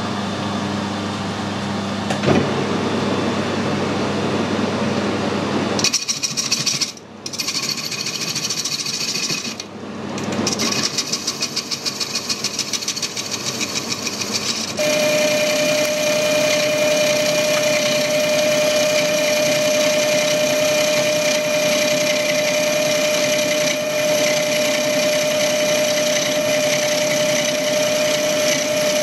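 Metal lathe running with a large steel pipe spinning in its chuck while the tool turns down the outside. Two brief dips near the start, then a fast even ticking, and about halfway through a steady high ringing tone sets in as the tool cuts and holds to the end.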